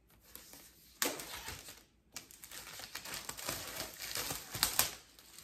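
Clear plastic wrap being torn and pulled off a laptop box, crinkling and rustling in uneven spurts, with a brief lull partway through and the loudest crinkles near the end.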